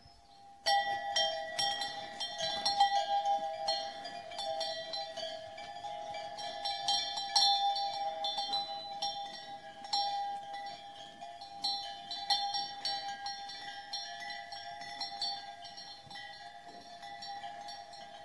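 Several cowbells on grazing cattle clanking irregularly, starting suddenly about a second in, over a steady ringing of the bells.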